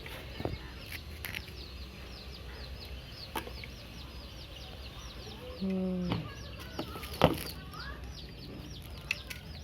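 Many chicks peeping steadily, short high falling chirps several times a second, with a few sharp knocks, the loudest about seven seconds in.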